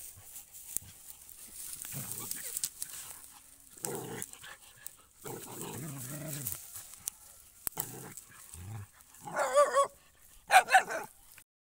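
Dogs play-fighting: low growls in the middle, then two loud, high-pitched yelps near the end, over light rustling of dry grass.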